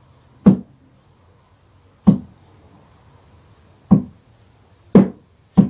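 A staff striking a hard floor five times, unevenly spaced, the last two knocks about half a second apart.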